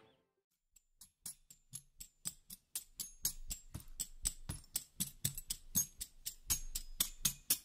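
Background music: after about a second of silence, a new track starts with a quick, even beat of sharp percussive hits, about six a second, growing louder.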